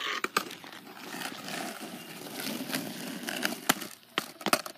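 Skateboard wheels rolling over asphalt, with several sharp clacks near the end as the board and trucks strike a wooden plank during a grind attempt.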